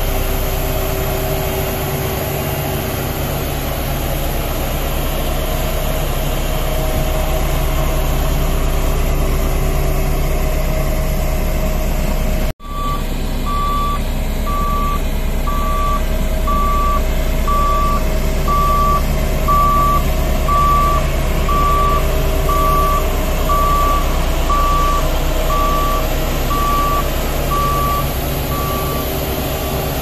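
L&T 1190D single-drum vibratory roller's diesel engine running steadily. After a brief cut just under halfway, its reversing alarm beeps at one pitch about once a second until near the end.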